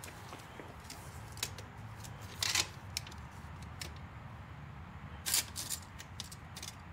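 Handling noises from work on a mower: a scatter of short clicks and scrapes, the loudest about two and a half seconds in and a cluster a little after five seconds, over a low steady hum.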